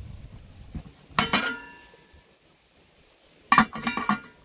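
Aluminium coffee urn clinking and ringing as it is handled: a metallic clink with a short ring about a second in, then a cluster of clinks near the end as the lid is set on the urn.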